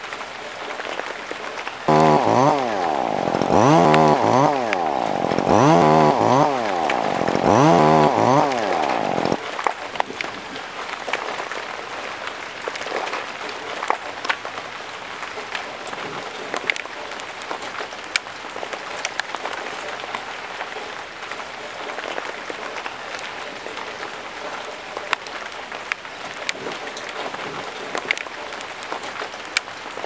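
Small two-stroke chainsaw revving, loud, four times in quick succession over about seven seconds, its pitch dipping and rising with each rev. It then stops, leaving steady rain hiss with scattered drip taps.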